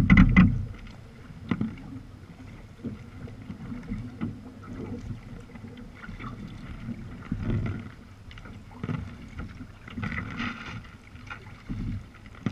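Sea kayak under paddle: paddle blades dipping and water splashing and lapping against the hull in irregular surges, the loudest right at the start.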